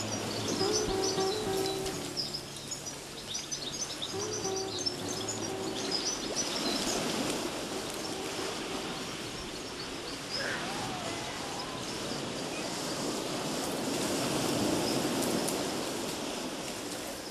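Soft background music with held notes, over outdoor ambience with high bird chirps. After about six seconds the music fades and a steady outdoor hiss takes over, with a couple of short gliding calls.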